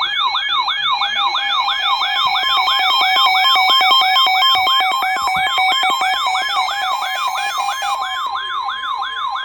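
Electronic emergency-alert siren tone: a fast repeating upward-sweeping wail, about three sweeps a second, over a steady held two-tone signal, sounded as an attention signal between Emergency Alert System weather warnings.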